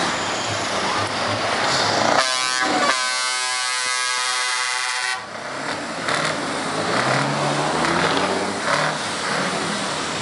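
Truck air horn sounding one blast of about three seconds, starting about two seconds in and cutting off sharply. Diesel truck engines run around it.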